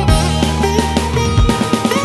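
Instrumental background music: a run of plucked string notes over held low tones, with a sustained higher note near the end.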